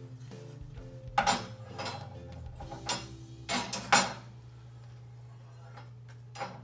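Metal parts of an Elekin 7-tier plant stand clinking and clanking against each other as they are picked up and sorted, in a handful of separate knocks. The loudest come about a second and about four seconds in.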